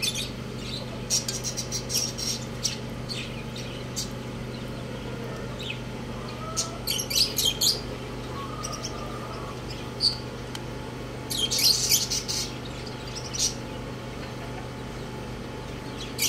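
Roosters pecking grain from a steel bowl, their beaks clicking and clinking against the metal in quick clusters of sharp taps, with pauses between.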